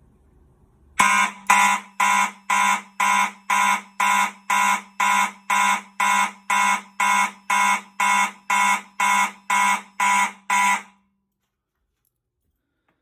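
Fire alarm horns on a Fire-Lite MS-9600UDLS panel's notification circuits sounding in March Time, two pulses a second, about twenty in all, then cutting off abruptly. The panel has re-alarmed coming out of walk test because the BG-12LX pull station was left activated.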